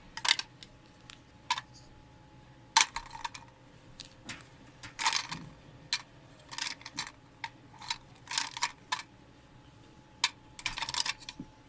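Hard plastic Mr. Potato Head pieces clicking and clattering as they are fitted into a plastic container, in irregular knocks and short rattles with pauses between.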